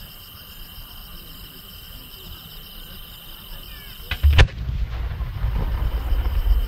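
A large aerial firework shell (a No. 10 shell with rising effects) fired from its mortar about four seconds in: one sharp boom, followed by a low rolling rumble as it climbs. Before the launch, steady insect chirping.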